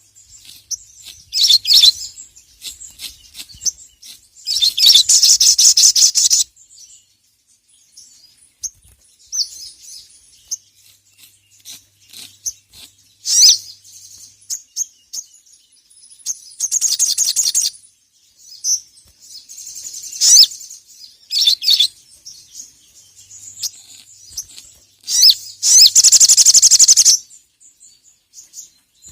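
Sogon (sogok ontong), a sunbird, singing loud and high-pitched in bursts: long, fast rattling trills of one to two seconds, three times, with short sharp chirps between them.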